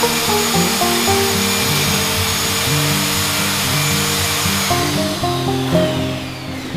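Background music with a melody of held notes, over a loud steady motor whir that winds down, falling in pitch, near the end.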